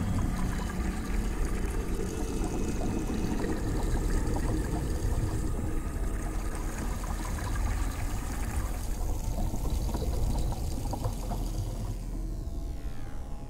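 Dark ambient music built on a dense rushing, pouring-water texture with faint held tones underneath; the higher part of the sound thins away over the last few seconds.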